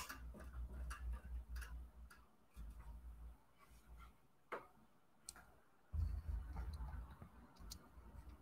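Scattered, irregular clicks and taps from a computer mouse and keyboard close to a desk microphone, with low rumbling handling noise in two stretches, the second starting about two-thirds of the way in.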